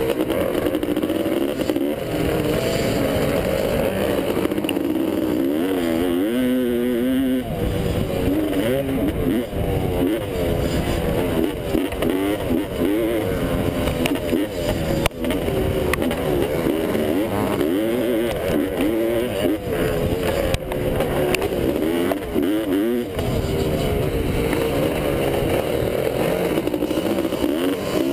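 1985 Honda CR500's two-stroke single-cylinder engine at racing speed, heard from on the bike, rising and falling in pitch over and over as the throttle opens and closes through the gears.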